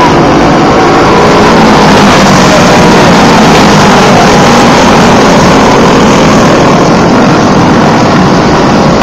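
Racing go-kart engines running hard as several dirt karts race past, a dense wavering buzz of small engines that stays loud throughout, close to overloading the recording.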